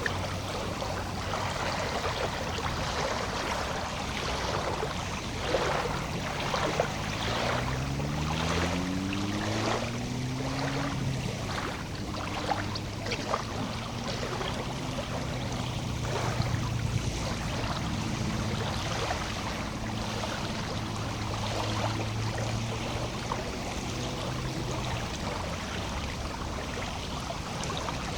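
Lake water lapping and splashing at the shore in small, irregular slaps. An engine hums underneath: it rises in pitch about a quarter of the way in, then holds steady until near the end.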